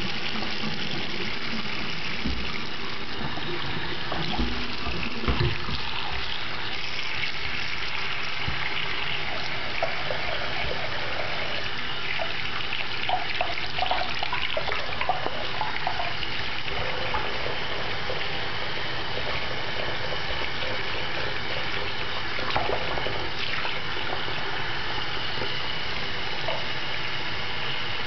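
Bathroom sink tap running in a steady rush of water into a partly filled basin, with a few small splashes as a hand scoops water over a ferret.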